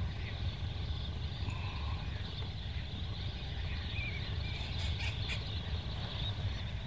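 Low rumble of wind on the microphone, with faint high calls of a distant shorebird flock now and then, one wavering call about four seconds in.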